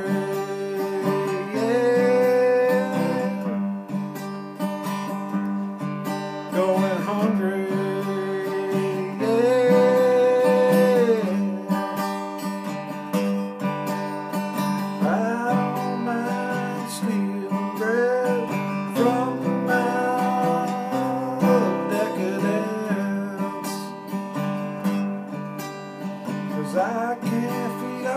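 A Takamine acoustic guitar strummed, with a man singing long, wavering notes over it.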